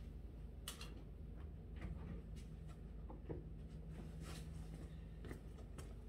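Faint room tone with a low steady hum and a few scattered soft clicks and rustles.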